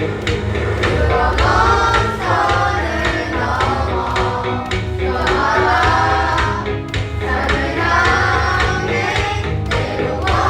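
School class choir singing together in unison over a backing track with bass and a steady drum beat.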